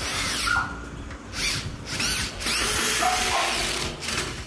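Cordless drill/driver driving 1.5-inch Phillips (star) screws through a stainless steel hinge into a wooden door, in several short runs with brief pauses; the longest run comes near the end.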